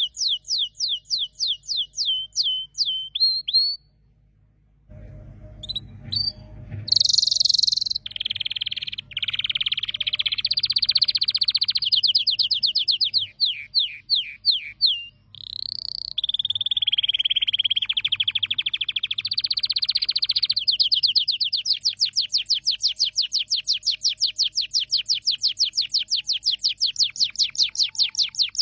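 Domestic canary singing: runs of rapid, high, downward-sweeping notes. A brief pause about four seconds in is followed by a series of varied trills and rolls, and the song ends in a long, fast trill.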